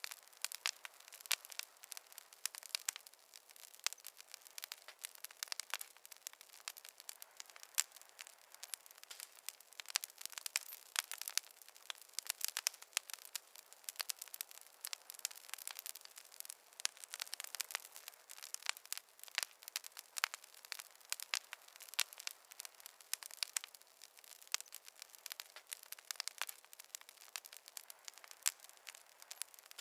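Wood fire crackling: dense, irregular sharp pops and snaps over a faint hiss.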